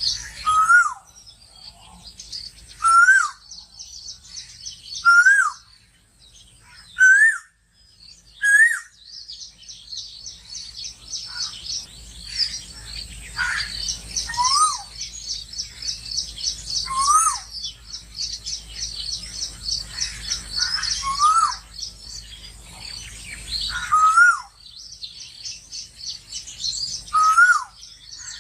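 Birds calling: one bird repeats a short, loud call that rises and then drops, every two to three seconds, over a dense chorus of high, rapid chirping from other birds that thickens about a third of the way in.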